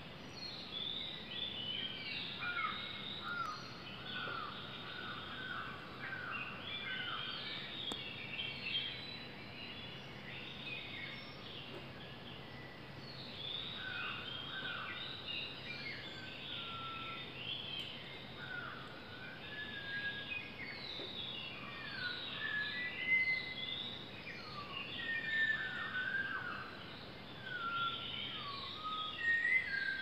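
Dawn chorus of many birds whistling and chirping at once in short overlapping notes, many of them sliding up or down in pitch, with no pause.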